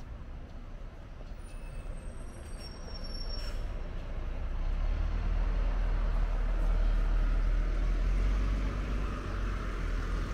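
Open-top double-decker sightseeing bus driving past close by, its engine rumble growing louder over the first few seconds, holding, then easing off near the end.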